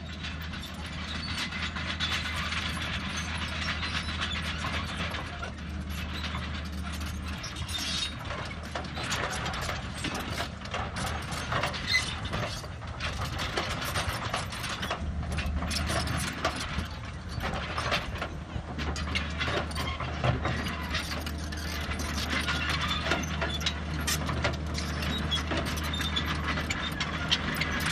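Excavator running, its diesel engine a steady low drone under continuous metallic clattering and clanking.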